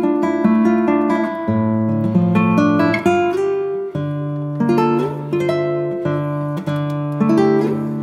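Background music of acoustic guitar, plucked notes and chords in a steady, regular pattern.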